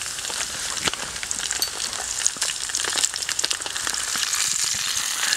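Sausages sizzling in a lightweight camping frying pan over a gas canister stove: a steady hiss dotted with many small crackles and spits of fat.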